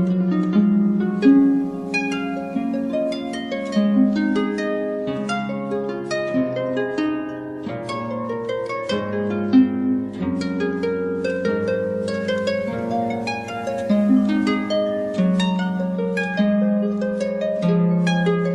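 Relaxing music of plucked harp-like strings playing a flowing run of notes over low sustained tones.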